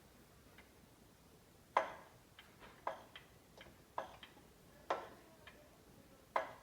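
Scattered light clicks and knocks of engine parts and tools being handled during an engine teardown. About five louder knocks fall roughly a second apart, with fainter ticks between them.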